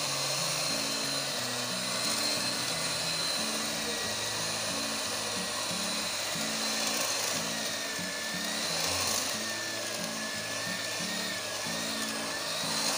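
Electric hand mixer running steadily, its beaters whisking flour into egg batter in a glass bowl, with a high motor whine that wavers slightly in pitch in the second half. Background music plays underneath.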